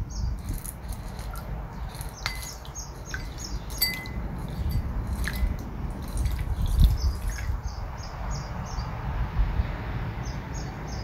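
Caustic soda flakes poured slowly into a glass of water, clicking and tinkling against the glass, with a couple of short glassy rings. The clicks stop after about seven and a half seconds.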